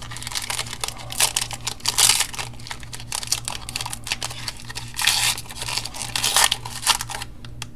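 Foil-wrapped trading card pack being torn open and crinkled in the hands: dense, irregular crackling, loudest about two and five seconds in.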